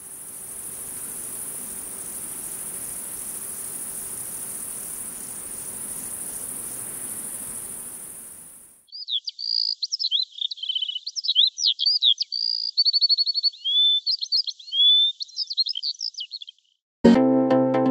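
High, steady insect chirring that fades out about nine seconds in. A songbird follows with a varied song of quick whistled phrases. Electronic music starts just before the end.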